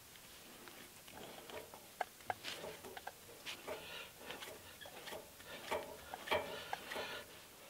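Cement mixer wheel hub turned back and forth by hand on its axle spindle, its freshly greased bearings giving faint scraping and irregular light clicks. The axle nut is being snugged down by hand to seat the bearings.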